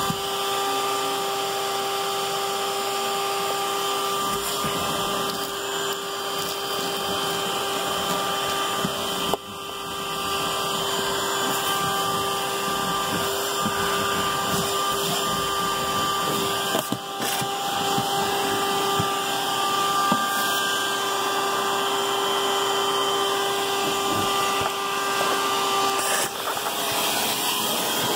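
Vacuum cleaner running steadily with a constant motor whine, its hose nozzle sucking along the vehicle's carpeted floor, with a few brief knocks along the way.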